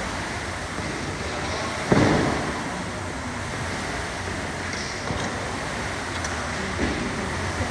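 Steady hiss of a large gym hall, with one sharp, loud thud about two seconds in and a few faint knocks later.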